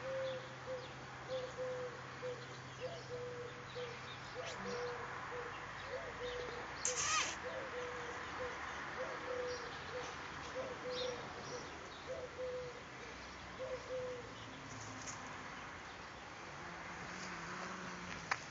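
A bird calling in the background: one low, short note repeated over and over, two or three a second, stopping about fourteen seconds in. About seven seconds in there is a short, loud hiss.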